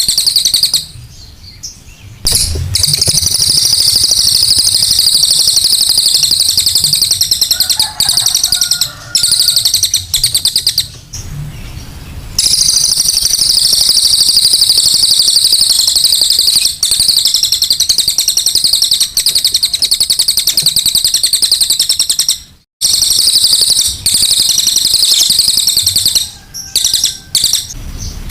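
Recorded song of a cililin bird in its harsh, rough-voiced form: a loud, very fast, high-pitched chattering, played as a lure track. It drops out briefly a few times.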